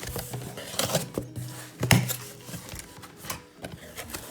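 A parcel being handled and opened: scattered knocks, taps and rustles of packaging, the sharpest knock about two seconds in, over quiet background music.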